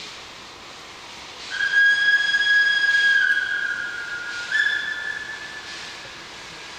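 Steam locomotive whistle blowing a long blast that starts about a second and a half in and dips slightly in pitch partway through. A second, louder blast follows at about four and a half seconds and fades out.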